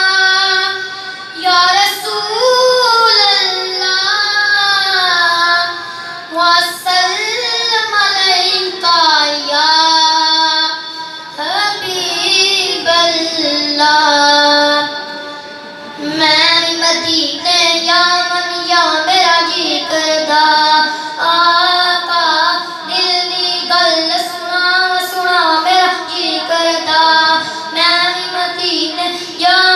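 A boy singing a naat, a devotional poem in praise of the Prophet, unaccompanied in long, ornamented held lines with brief pauses for breath.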